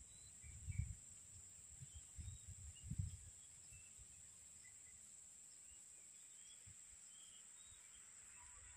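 Faint rural ambience: a steady high-pitched insect drone with a few faint, scattered bird chirps. A few low rumbling thumps come in the first three seconds.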